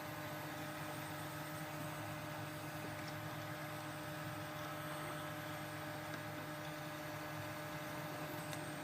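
Steady electrical hum with a few held tones and a light hiss, unchanging throughout.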